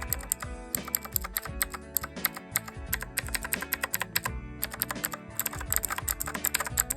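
Fast typing on a mechanical keyboard with lubed Akko CS Jelly Black linear switches and PBT keycaps, a quick run of several keystrokes a second, over background music.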